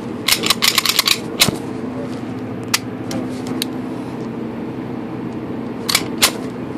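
Quick sharp clicks and taps from handling: a fast run of clicks in the first second and a half, then a few single ones, over a steady low hum.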